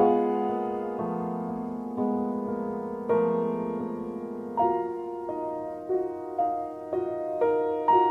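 Background piano music: slow notes and chords, each struck and left to ring, coming faster near the end.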